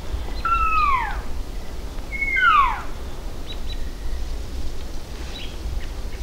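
Two cow-elk mews, nasal calls that slide steeply down in pitch, each under a second long. The second comes about two seconds in, is louder, and opens with a short level note before it drops.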